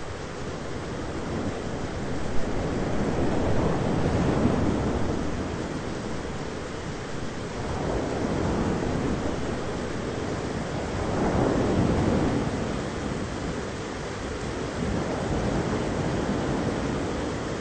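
Thunderstorm ambience: a steady rush of noise that swells and fades about every four seconds, with one short sharp sound about two and a half seconds in.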